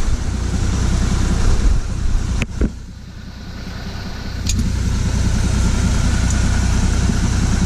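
Truck engine idling steadily. A sharp knock comes about two and a half seconds in, the engine sound drops for a couple of seconds, then comes back.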